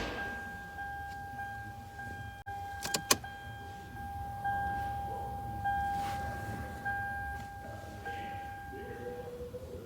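Electronic warning chime repeating about once a second as a steady ringing tone, with a couple of sharp clicks about three seconds in. A lower tone sounds near the end.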